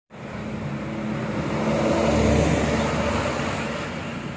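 Road traffic: a motor vehicle's engine passing by, growing louder to a peak about halfway through and then fading away.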